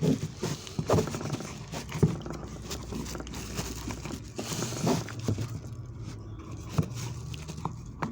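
Irregular knocks, clicks and scraping as a knife works at a used oil filter to cut it open.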